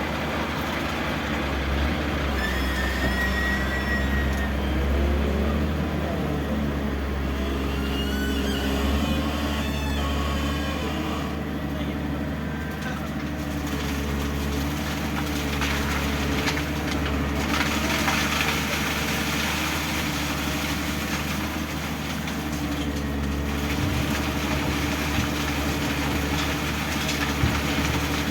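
Backhoe loader's diesel engine running steadily, with a few brief high-pitched whines over it early on.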